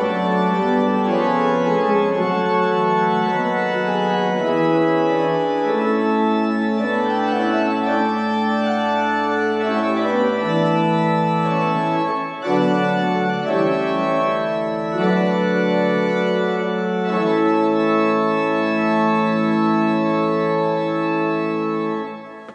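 Organ music: sustained chords over a held low bass line, changing every second or two, with a brief break about halfway and a quick fade-out at the end.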